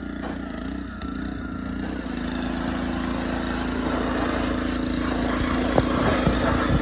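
An engine running steadily and slowly getting louder, with a steady hum coming in about two seconds in and a few light knocks near the end.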